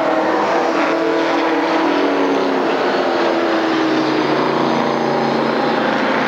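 Stock cars racing around an oval track, several engines running hard together, with their engine notes sliding down in pitch as cars go by.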